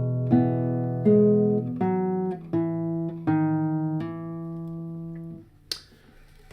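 Guitar played slowly as a phrase of single plucked notes, one about every three-quarters of a second. The last note is left ringing for about two seconds and is then damped, and a faint click follows.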